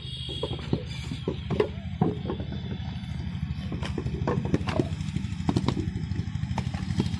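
An engine runs steadily with a low, rapidly pulsing rumble, while irregular sharp knocks and thumps sound over it, as clay is thrown into wooden brick moulds and handled.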